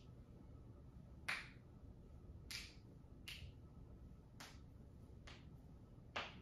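A series of short, sharp clicks, six of them at irregular intervals of about a second, over a quiet, steady background hum.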